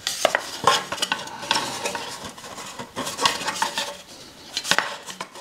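Small metal parts clinking and scraping in irregular clicks as clips are fitted to a motorcycle exhaust.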